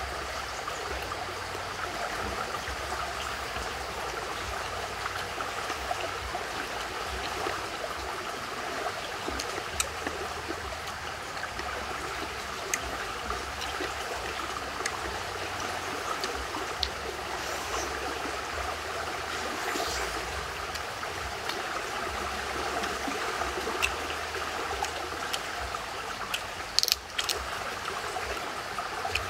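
Stream water running steadily, with a few short clicks and one louder sharp knock near the end.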